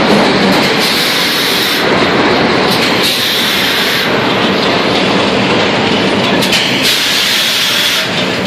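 Vintage R1/9 IND subway car running at speed, heard from inside the car: loud, steady wheel-on-rail noise with a hissing edge that comes and goes.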